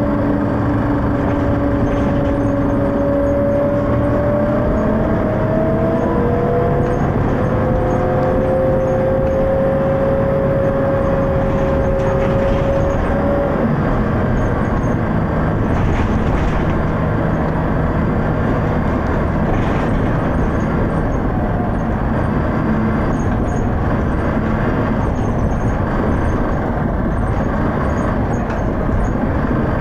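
Dennis Arrow double-decker bus under way with its ZF automatic gearbox. A whine climbs in pitch as the bus gathers speed, drops at a gear change about six seconds in and climbs again. After that the bus runs on steadily with road rumble and a few knocks.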